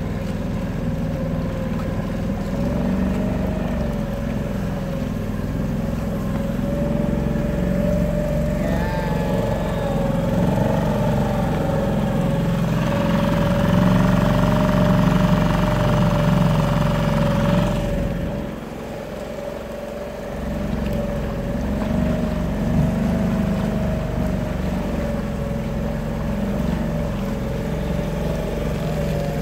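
A small work boat's motor running steadily on the water. It dips briefly about two-thirds of the way through, then picks up again.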